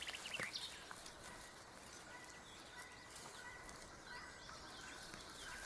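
Faint outdoor ambience with small birds chirping in the background, and a few soft clicks or rustles near the start.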